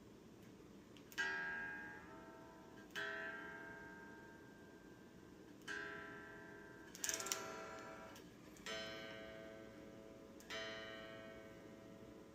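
Epiphone SG Junior electric guitar with single chords strummed one at a time and left to ring out, about six strums in all, with a quick double strum about seven seconds in.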